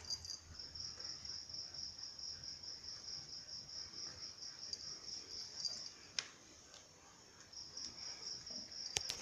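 Insect chirping in a steady, fast-pulsing high trill, which breaks off for about a second and a half after a sharp click about six seconds in, then starts again. Two more sharp clicks come near the end.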